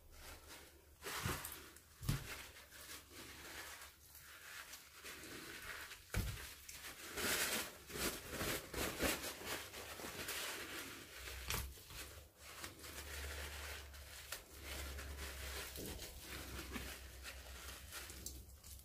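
Tissue paper crinkling and rustling as raw chicken skin is gripped and pulled off the meat, with a few soft knocks in the first few seconds.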